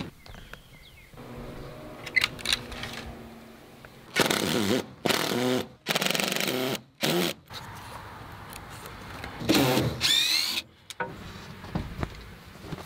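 Cordless drill running in several short bursts on screws in a wooden frame: four quick runs close together, then one longer run with a rising whine near the end.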